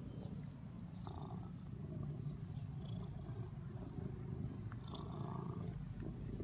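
Black-and-white domestic cat purring steadily, a continuous low rumble picked up with the microphone right against its fur.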